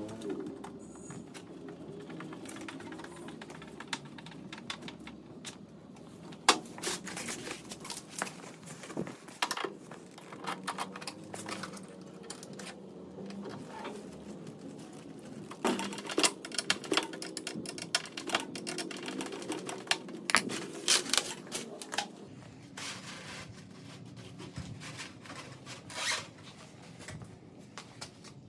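Irregular clicks, taps and scrapes of a hand screwdriver driving screws to fix a metal concealed hinge onto a wooden cabinet door frame, with the door and hardware being handled.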